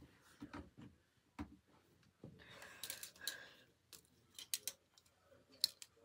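Handling noise: scattered light clicks and taps, with a brief rustle about two and a half seconds in.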